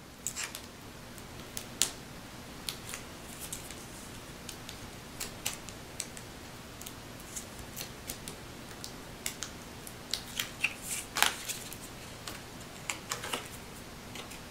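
Paper crafting handling: scattered small clicks and crinkles of paper as the backing papers are peeled off adhesive foam dimensionals and a patterned paper piece is pressed down onto card stock, with a busier run of crackles about ten to eleven seconds in.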